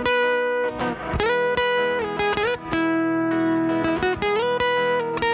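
Background music: a plucked guitar melody with sustained notes.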